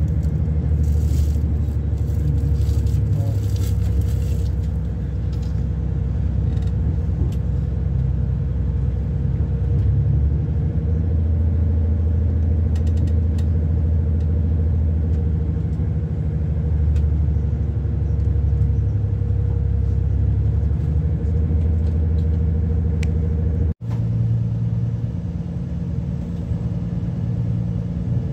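Inside a moving diesel passenger train: a steady low rumble of the engine and running gear with a constant hum, and a few light clicks in the first few seconds. It cuts off for an instant near the end, and a similar steady hum carries on after.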